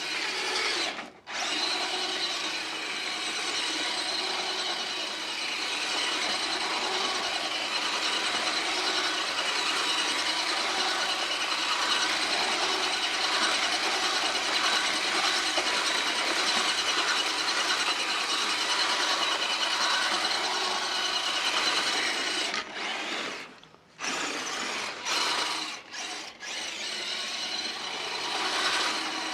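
Axial SCX10 Deadbolt RC truck's electric motor whining steadily at full throttle as its stock tires spin in snow doing donuts. The whine cuts out briefly about a second in and twice near the end as the throttle is let off.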